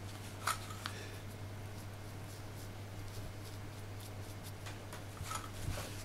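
Tissue rubbing and rustling on a rubber keypad membrane while wiping stray carbon paint off it. A few short scratchy rubs come about half a second in, just before one second, and near the end, over a steady low hum.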